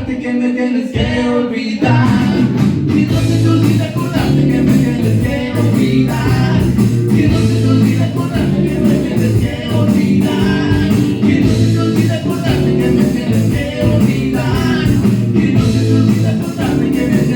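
A rock band playing a song live: a singer over guitars, with a steady beat.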